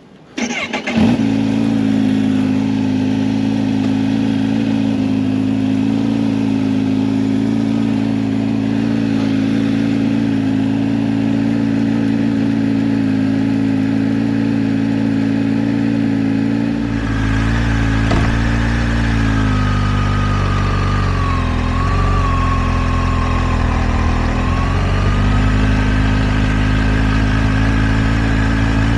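Kawasaki Ninja H2 SX's supercharged inline-four catching at the start and then idling steadily. About two-thirds of the way through the note turns deeper and heavier and wavers in pitch for a few seconds before settling again.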